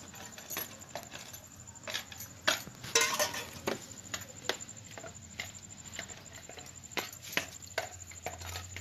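Hand mixing a thick batter of catla fish roe, gram flour, onion and green chilli in a small bowl: irregular soft patting and clicking, with a few sharper knocks, the loudest about three seconds in.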